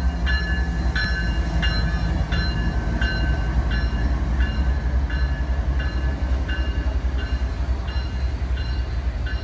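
Florida East Coast Railway diesel locomotives idling with a deep steady rumble, while a locomotive bell rings about one and a half strikes a second. The strikes grow fainter toward the end.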